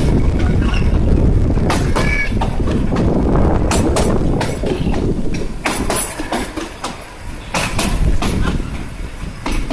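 Kalka–Shimla narrow-gauge toy train running: a low rumble of the carriage on the track, with sharp, irregular clicks and knocks from the wheels and couplings. The rumble eases for a moment about two-thirds of the way through.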